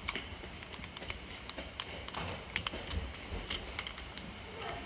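Scattered light clicks and taps of a screwdriver and a plastic twist-lock generator plug end being handled, irregular and a few each second.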